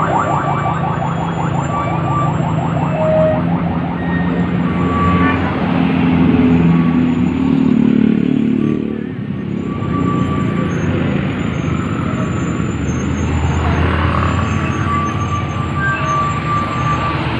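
A motor vehicle's engine running close by, growing louder a couple of seconds in and easing off about nine seconds in, with a steady noisy rush underneath.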